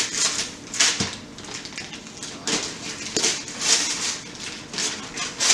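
Tissue paper rustling in short, repeated bursts as a gift box is opened and its paper handled.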